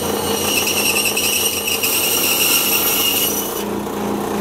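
Power tool running steadily as it cuts a piece off a partly rotten wooden stick, with a high whine over the motor hum that drops away about three and a half seconds in.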